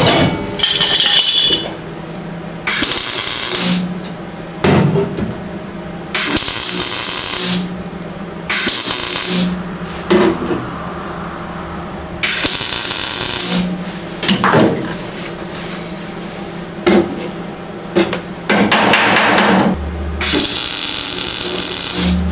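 MIG welder laying tack welds on a sheet-metal quarter-panel patch: about seven short bursts of arc crackle, each about a second long. Between the tacks come a few light hammer taps, which set the metal down tight to keep the gap closed.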